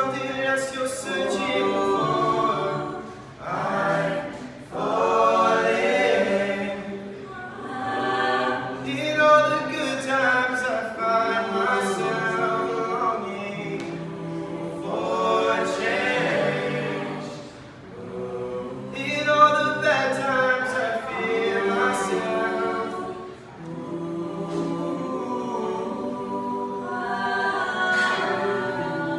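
Mixed a cappella group of women and men, about ten voices, singing in harmony without instruments, in phrases with short breaks between them.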